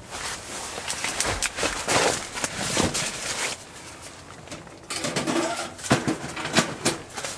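Plastic groundsheet rustling with knocks and clicks as someone moves about and handles a small wood stove, in two busy spells with a short lull in the middle.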